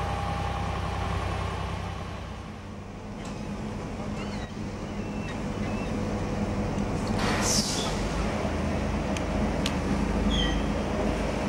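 A large mobile crane's diesel engine running steadily as it lowers a load. A short hiss of air comes a little past halfway.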